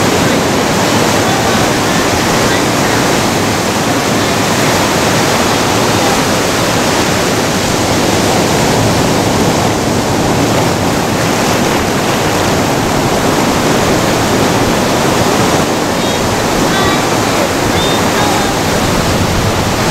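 Ocean surf breaking and washing in around beach rocks: a steady, loud rush of water.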